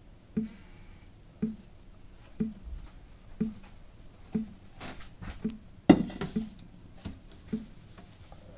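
Indoor room sound: a soft, regular tick about once a second, and one louder sharp knock about six seconds in.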